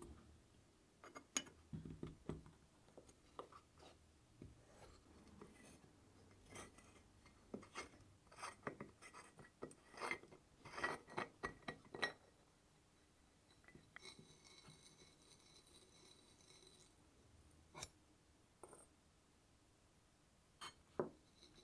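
Faint metal clicks and scrapes as a brass valve fitting is turned by hand out of a steel camping-stove fuel tank, its threads rubbing. Most of the clicks come in the first half, and only a few scattered ones near the end.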